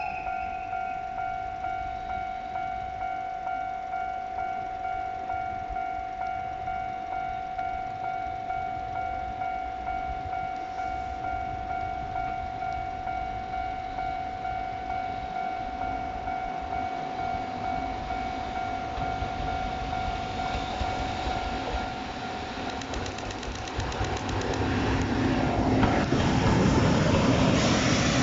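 Japanese level-crossing warning bell ringing at a steady, even beat. From about twenty seconds in, the EF65 electric locomotive approaches and runs over the crossing, growing loud near the end, with clicking of its wheels on the rails.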